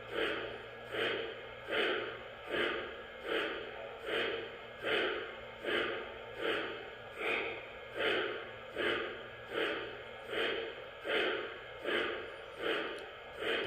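Model steam locomotive sound system (ERR Railsounds with JW&A Super-Chuffer) on an O gauge MTH 0-8-0 switcher playing a steady, slow steam chuff, about five chuffs every four seconds, as the drivers turn on rollers.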